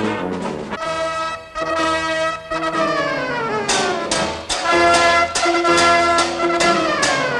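Brass-led circus music from a cartoon soundtrack, trumpet and trombone playing held notes; twice the notes slide downward in long falling glides, about three seconds in and again near the end.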